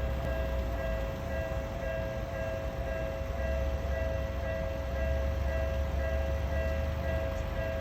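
Japanese railway level-crossing warning bell ringing, an electronic bell tone repeating steadily, over a continuous low rumble.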